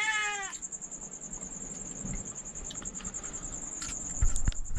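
A cricket trills steadily in a high, evenly pulsed tone. A cat gives a short falling meow right at the start, and a few soft knocks come about four seconds in.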